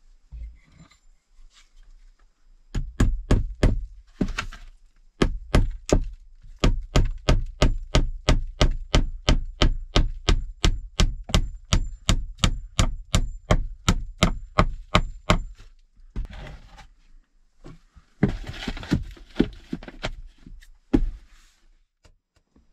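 Rapid, evenly paced chopping strokes on wood, about two or three a second for some thirteen seconds. They are followed by a few seconds of rustling and one last knock.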